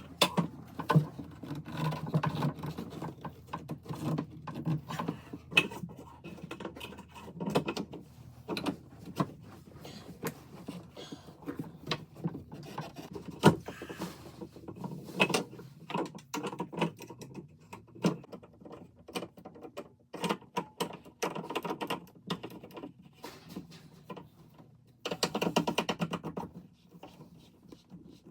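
Irregular knocks, clicks and scrapes of hand work on plumbing parts: pipe and fittings being handled and fitted.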